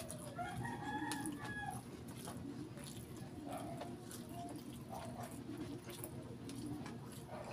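Eating sounds: chewing and small wet clicks as fried chicken is eaten by hand, over a steady low hum. About half a second in, a pitched animal call lasts about a second and a half.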